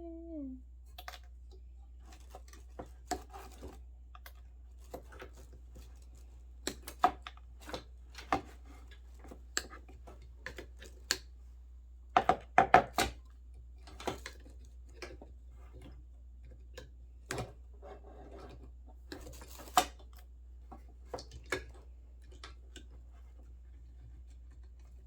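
Scattered clicks, taps and scrapes of hand tools and small metal parts while a vintage 1960s Talk-a-phone intercom is being taken apart, with a quick cluster of knocks about halfway through. A steady low hum lies underneath.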